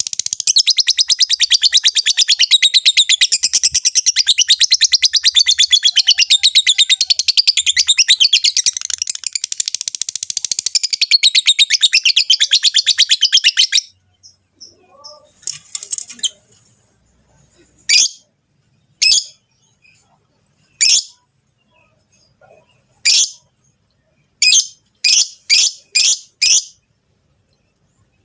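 Lovebirds calling: about fourteen seconds of rapid, continuous high-pitched chattering that stops abruptly, then a series of single short, sharp calls every second or two, four or five in quick succession near the end. These are presented as the mating calls of rosy-faced and Fischer's lovebirds.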